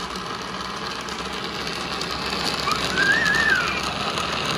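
Countertop blender running steadily, grinding grated coconut with water into coconut milk. A short whistle-like note rises and falls about three seconds in.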